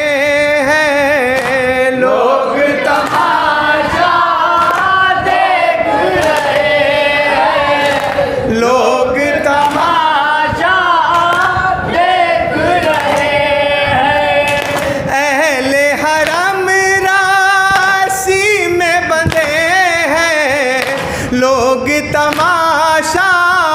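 A man chanting a noha, a Shia mourning lament, into a microphone with no instruments, the melody held in long, wavering sung lines, with other voices joining in.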